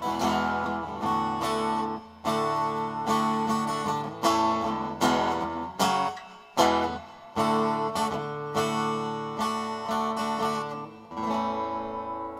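Instrumental close of a rock song: strummed guitar chords over the band, ending on a final chord about 11 seconds in that rings out and fades.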